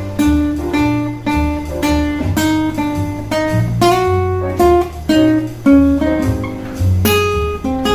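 Acoustic guitar played fingerstyle: a plucked melody of single notes over a moving bass line, a few notes a second.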